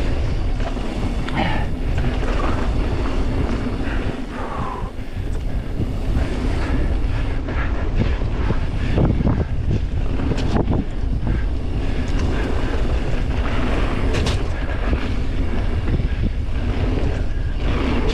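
Mountain bike riding fast down a dirt singletrack: wind rushing over the microphone, tyres rolling on gravelly dirt, and a few sharp knocks and rattles from the bike over bumps.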